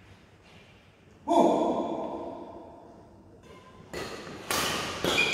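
A single loud thump with a fading ring a little over a second in. From about four seconds in, a badminton rally: racket strikes on the shuttlecock and shoe squeaks on the court floor, several sharp hits in quick succession.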